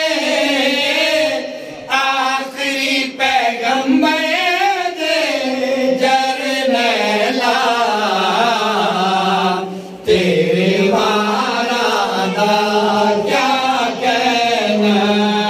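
Several men chanting a devotional verse together into a microphone, with long melodic held notes. The chant breaks off briefly about two seconds in and again just before ten seconds.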